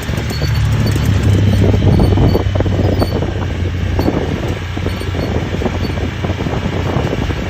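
Honda Talon side-by-side's engine running under way, its note climbing about half a second in and then settling to a steady drone, with wind buffeting the microphone.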